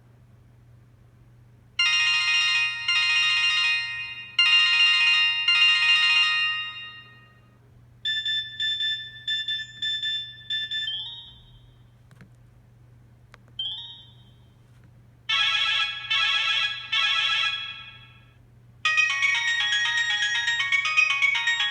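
Sanyo Katana ringtones, converted to MIDI, playing through a Kyocera Cadence phone's speaker, several short ones in a row with pauses between. First a trilling ring sounds twice, then a run of quick beeps and two brief rising chirps, then three trilling bursts, and near the end a melodic ringtone tune begins.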